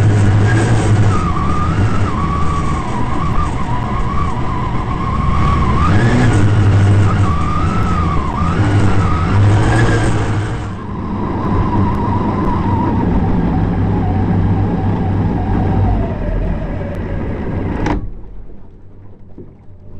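6-litre fuel-injected race boat engine running hard, its pitch wavering up and down with the throttle, heard from the cockpit. About halfway through it eases off and the pitch falls steadily as the boat slows, and near the end the engine sound cuts off sharply, leaving a much quieter rumble.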